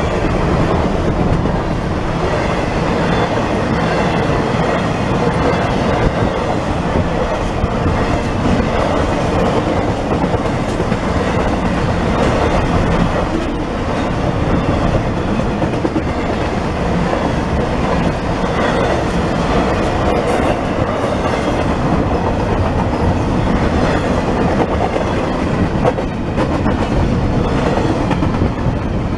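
A freight train of intermodal container well cars rolling past at speed: the steady noise of steel wheels running over the rails, with the clatter of the cars going by.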